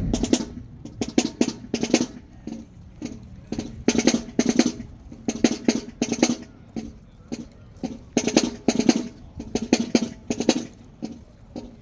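Marching band drumline playing a percussion feature on snare and bass drums: rhythmic clusters of sharp strikes and rolls.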